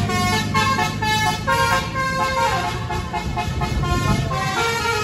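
Tour bus's Basuri multi-tone 'telolet' horn playing a melody of short, stepped, held notes over the steady low running of the bus engine.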